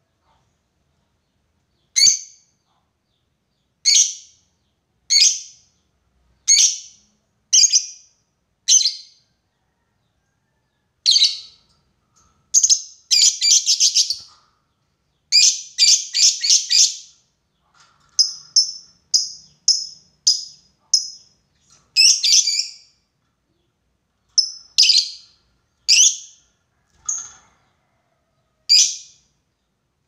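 Fischer's lovebird giving loud, shrill calls. They start as single calls about a second apart, then break into quick runs of rapid chattering calls in the middle, the 'ngekek' chatter that lovebird keepers train for.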